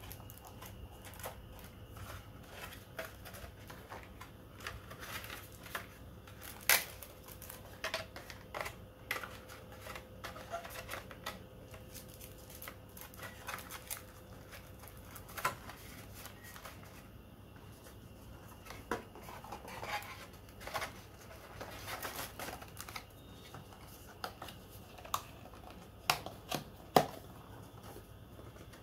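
Hands handling packaging and small plastic items: irregular light clicks, taps and rustles, with a few sharper clicks, one about seven seconds in and several near the end.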